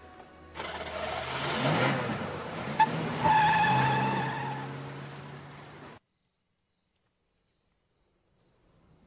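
Mercedes-Benz SL convertible's engine revving as the car pulls away fast, with tyres squealing. It builds quickly, with a sharp click near three seconds and a squeal just after, then fades and cuts off suddenly about six seconds in, leaving near silence.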